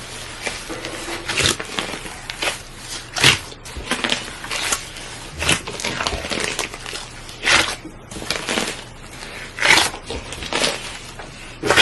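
A large batch of slime being kneaded by hand, squished and folded with irregular sticky clicks and pops, several a second.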